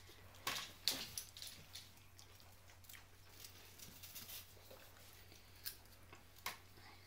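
Belgian Shepherd puppies scuffling as they play on a rug: faint scattered scratches and taps, loudest in a short cluster about a second in.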